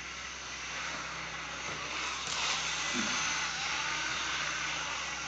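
OO gauge model train running on the layout: a steady rushing noise of motor and wheels on track that grows louder toward the middle and then cuts off suddenly near the end.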